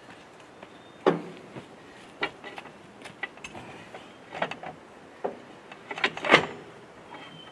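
Irregular knocks, clunks and scrapes from hand work on a mini-excavator's track and undercarriage, with the loudest cluster about six seconds in.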